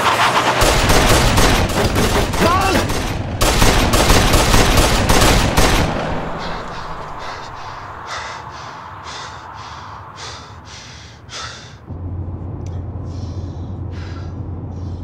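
Rapid gunfire: many shots in quick succession for about the first six seconds, then sparser, fainter shots. About twelve seconds in it gives way to the steady low hum of a car's cabin.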